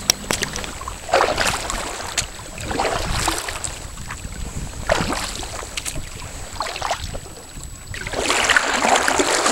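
Sea kayak paddle strokes in calm water: a splash and swish of the blade about every one and a half to two seconds, with a few light knocks, and water rushing louder in the last second or two.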